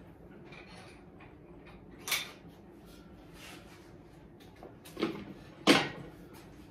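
Three sharp clanks of metal gym equipment being handled: one about two seconds in, then two close together near the end, the last the loudest.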